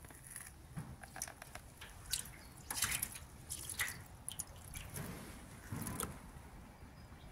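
Water tipped from a plastic cup onto a sheet-metal valley gutter, faintly splashing and trickling as it spreads and runs down the metal, with scattered small drips and spatters.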